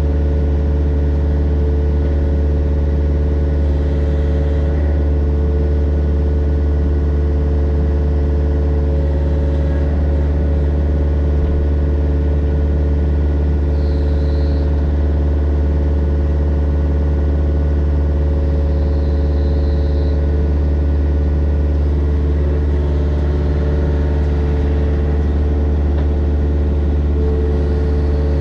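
Mini excavator's diesel engine running at a steady speed, with no change in pitch.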